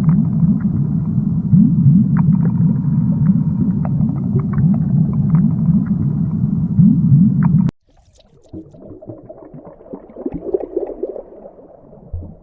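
Underwater water noise: a loud, low rumble of churning water with scattered clicks cuts off abruptly about eight seconds in. After it, quieter bubbling and gurgling water follows.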